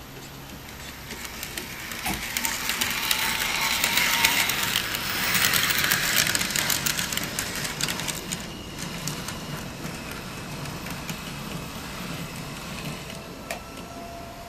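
N-scale model tram running past close by: its small electric motor and wheels rattle along the track, with rapid clicking as the wheels cross rail joints and points. It grows louder to a peak a few seconds in, then fades to a quieter steady running sound.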